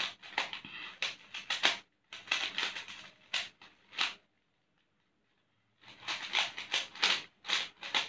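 Plastic 3x3 Rubik's cube being turned rapidly by hand: quick runs of sharp clicks and clacks as the layers snap round. About halfway through, the clicking stops dead for a second and a half, then starts again.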